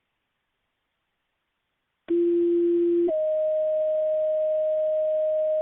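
Two-tone sequential fire paging tones over the dispatch radio. About two seconds in, a lower tone sounds for about a second, then a higher tone is held for about three seconds, toning out fire departments for a call.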